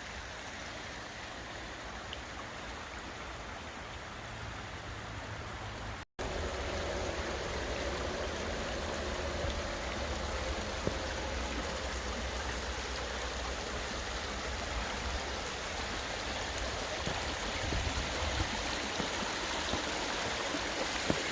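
A steady rush of running water, like a small stream, with a low rumble beneath it. The sound drops out for an instant about six seconds in and is a little louder afterwards.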